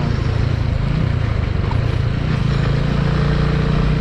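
TVS Apache 200 motorcycle's single-cylinder engine running at low revs while the bike rolls slowly, its note rising slightly about halfway through, with some road and wind noise.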